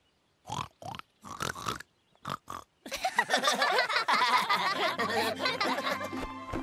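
Cartoon characters' voices making four short pig-like oinking snorts, then several voices breaking into laughter together. A music cue comes in underneath about five seconds in.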